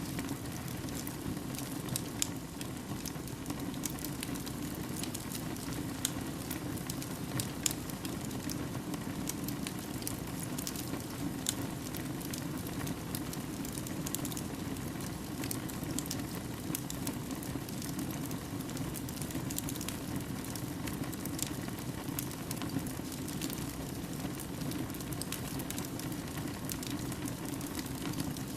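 Fire burning in a fireplace: a steady low rush of flames with frequent small crackles and pops.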